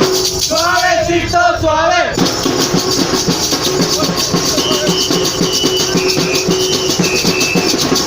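Percussion music with a steady, driving beat and a prominent shaker rhythm. A voice calls out briefly near the start, and a few short high-pitched held tones sound in the second half.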